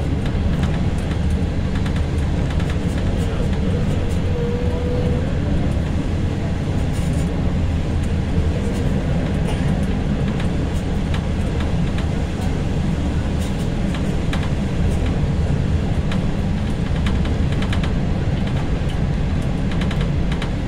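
Passenger train running at speed through a long rail tunnel, heard inside the carriage at its rear end door: a steady, loud rumble of wheels on the rails, with scattered clicks and rattles. A short, thin tone sounds about four seconds in.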